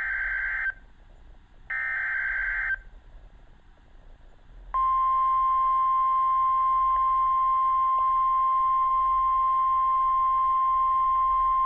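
Two roughly one-second bursts of Emergency Alert System SAME header data, the warbling digital screech that encodes the alert. About two seconds later the single steady NOAA Weather Radio warning alarm tone starts and holds, announcing a severe thunderstorm warning.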